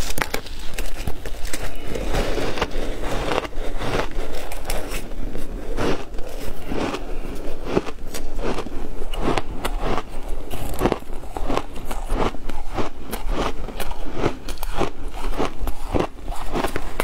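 Matcha-dusted ice being bitten and chewed close to the microphone: a dense, unbroken run of sharp, rapid crunches.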